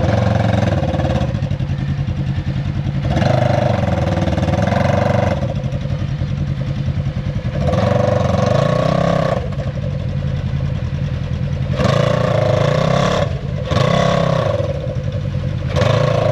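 Side-by-side UTV engine, a Polaris RZR 900, running under load and revving in about six repeated throttle surges, each a second or two long, with the pitch rising and falling between them.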